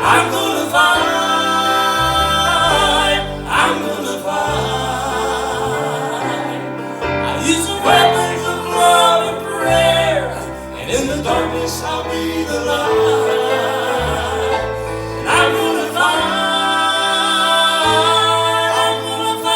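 Gospel singing with instrumental accompaniment: voices holding long notes with vibrato over a steady bass line.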